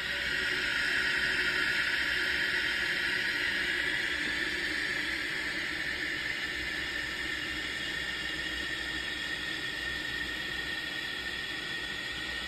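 Toilet cistern fill valve hissing steadily as water runs into the tank. It swells about half a second in and eases slightly later on. The valve has just been adjusted so the tank fills to a higher water level.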